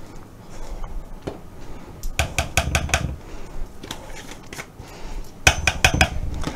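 Metal measuring spoons on a ring clicking and clinking as a spice is measured out: two runs of quick clicks, one about two seconds in and one near the end.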